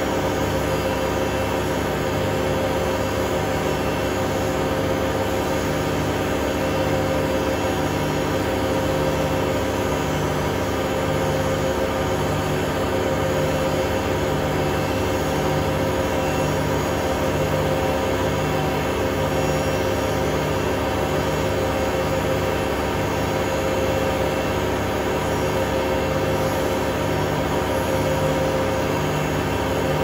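Hotpoint Aquarius WMA32 washing machine on a test spin, its drum turning at high speed. The motor gives a steady whine over the drum's rumble, with a low throb pulsing a little more than once a second.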